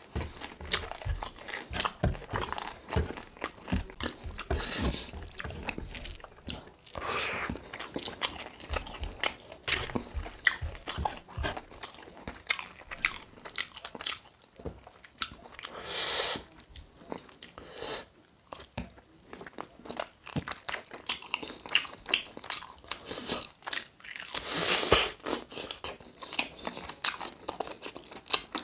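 Close-miked eating of chicken drumsticks with rice: biting, crunching and chewing with wet mouth clicks, heard as many short crackles, with louder bouts of crunching several times.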